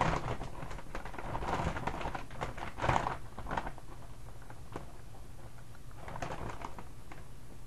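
Doritos chip bag crinkling in several irregular bursts as a hand rummages inside it for chips.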